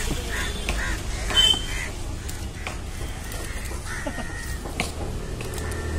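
Fish-market ambience: crows calling over a steady low background rumble, a brief shrill toot about a second and a half in, and a few sharp knocks of the knife against the wooden chopping block as a large fish is cut open.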